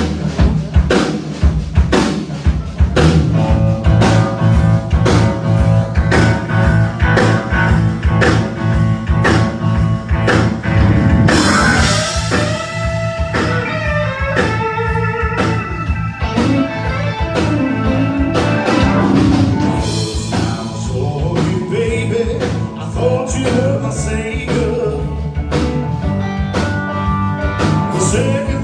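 Blues band playing live: electric guitar, bass guitar, drum kit and keyboard, over a steady drum beat.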